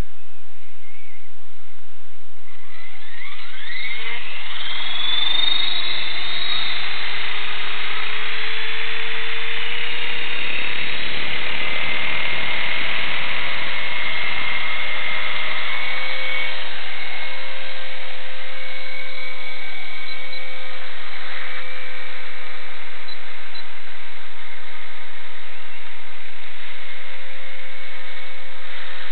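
Electric motor and rotor of an EXI-450 radio-controlled helicopter spooling up: a whine that starts a few seconds in, rises in pitch for several seconds, then holds steady once the rotor is up to speed.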